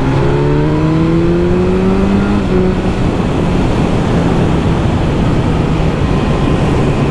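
BMW S1000R's inline-four engine accelerating hard through its stock exhaust, its pitch rising for about two and a half seconds, then dropping slightly and holding steady, under heavy wind noise on the helmet camera.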